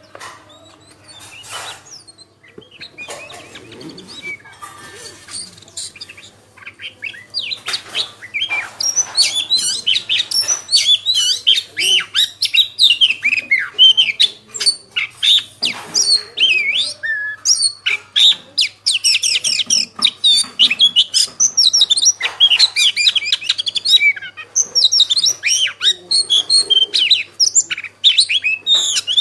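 Many small birds chirping rapidly in dense, overlapping high chirps. The chirping is sparse and quieter at first and swells to a loud, continuous chorus about eight seconds in.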